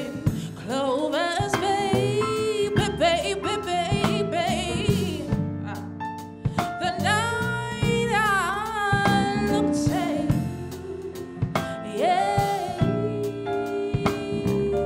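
A woman singing a soulful song live into a microphone, with long sliding runs and wavering held notes, backed by a band with a drum kit.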